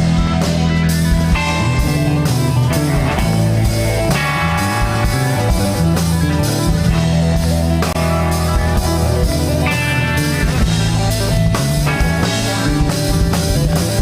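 Live rock band playing an instrumental stretch with no vocals: electric guitars over bass guitar and drum kit.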